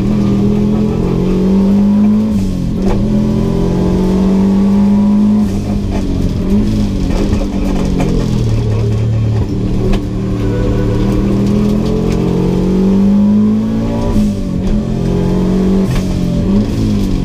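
Subaru GC8 WRX's turbocharged flat-four engine heard from inside the cabin under hard driving, its note climbing with revs and then dropping back about four times as the car lifts off, brakes and shifts gear.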